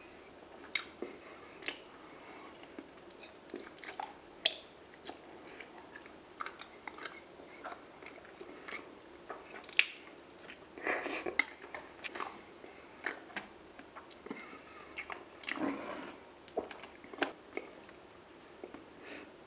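Close-miked mouth eating raw honeycomb and a spoonful of chili-flake sauce: chewing and biting with sharp clicks at irregular intervals, and louder spells of chewing about eleven and sixteen seconds in.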